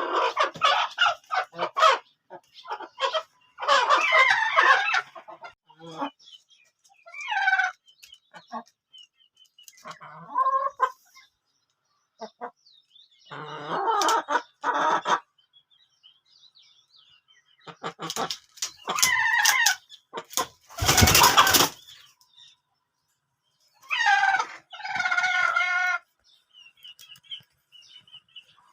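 Chicken hens clucking and squawking in irregular bursts, with short clicks between the calls and one loud, harsh burst about two-thirds of the way through.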